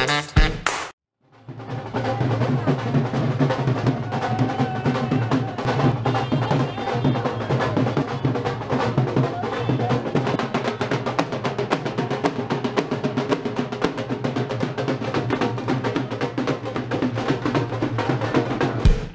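Wedding procession drums played in a fast, dense roll of beats over a steady low hum, starting about a second in after a brief gap.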